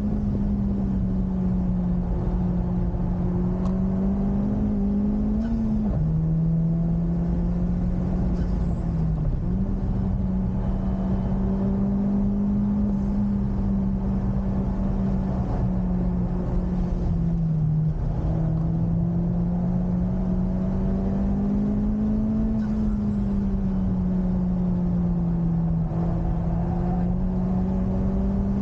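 Honda Civic Type R FK8's turbocharged four-cylinder engine running hard at high revs on track, its pitch climbing slowly and then dropping sharply at gear changes about six and eighteen seconds in, with a quick jump in pitch near ten seconds. Steady road and wind noise runs underneath.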